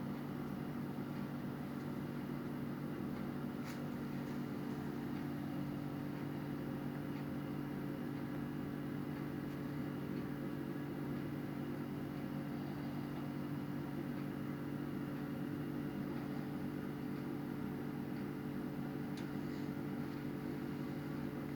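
A steady low electrical hum with several fixed tones, unchanging throughout, with a faint tick about four seconds in and another near the end.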